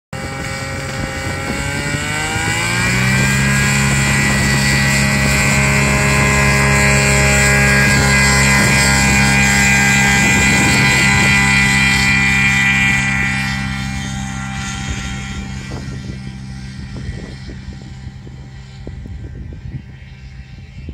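Shark self-launching glider's engine and propeller rising to full power over the first few seconds, running steadily at full throttle through the takeoff roll, then fading as the glider moves away and climbs out.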